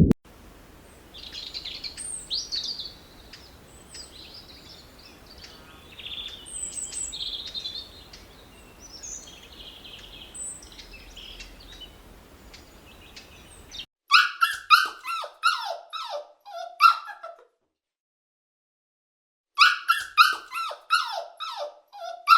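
Faint, high chirping over a low hiss, then two bursts of rapid, short, downward-sliding yelping calls from an animal, with a clean break of about two seconds between them.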